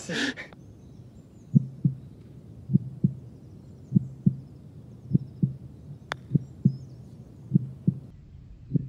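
Heartbeat sound effect: a slow, even lub-dub, one double thump about every 1.2 seconds, with a single sharp click about six seconds in.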